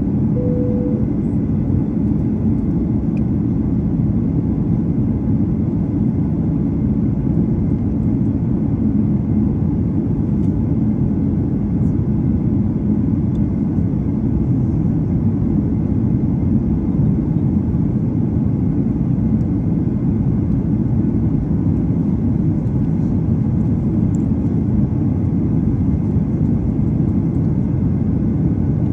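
Jet airliner cabin noise at a window seat beside the engine during descent: a steady, deep rumble of turbofan engine and airflow. A short beep sounds about half a second in.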